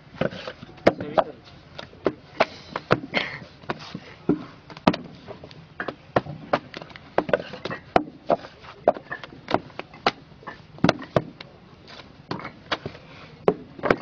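Handmade brick moulding by several workers: wet clay lumps slapped into wooden brick moulds and the moulds knocked on the ground, giving sharp, uneven knocks and slaps about three a second.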